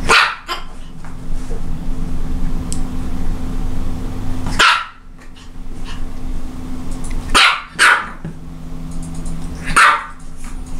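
A Japanese Chin, a small toy dog, barking: single barks a few seconds apart, five in all, two of them in quick succession a little past the middle.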